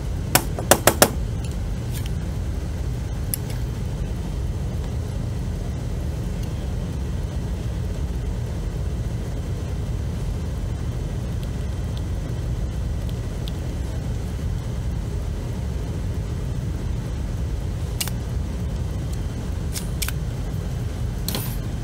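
Spring-loaded desoldering pump clicking as it is worked on the key fob's solder joints: a quick run of four sharp snaps about half a second in and a few more clicks near the end, over a steady low rumble.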